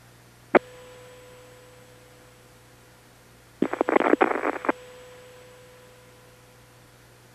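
A single sharp bang about half a second in, then a rapid burst of about eight bangs a few seconds later. Each time a ringing tone is left behind, fading over a couple of seconds, over a steady low hum.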